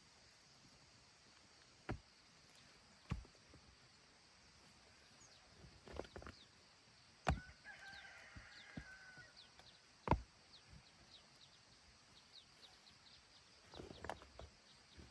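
A few scattered sharp knocks, with a drawn-out bird call held for over a second about eight seconds in and faint, quick high chirps through the second half.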